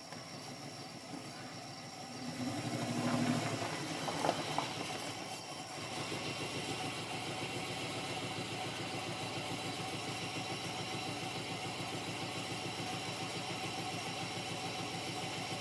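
Oldsmobile Intrigue V6 engine idling steadily after a timing chain repair, with a brief louder swell about two seconds in.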